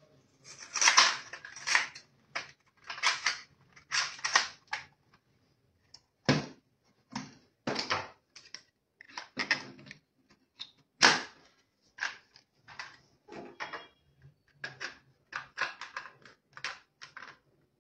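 Hard plastic toy gun parts clicking, knocking and rattling against each other as they are handled and fitted together, in irregular short bursts with pauses between.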